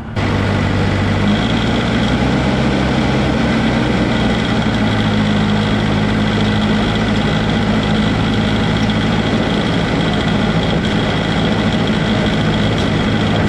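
Crawler dozer's diesel engine running steadily as the machine travels on its tracks.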